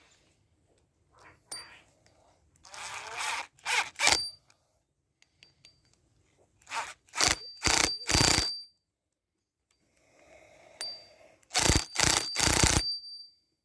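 Metal hose-repair parts and tools clinking and scraping: a cluster of sharp clinks about seven seconds in and another near the end, some leaving a brief high ring.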